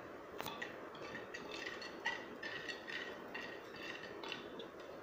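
Metal spoon stirring a lemon-mint drink in a small clay pot, clinking lightly against the pot's sides two or three times a second, with one sharper click about half a second in.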